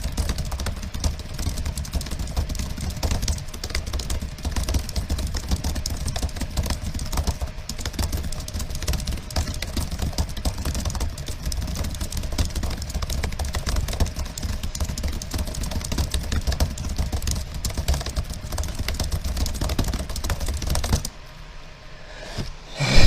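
Fast typing on a computer keyboard: a dense, continuous stream of keystrokes over a steady low rumble, which stops about 21 seconds in.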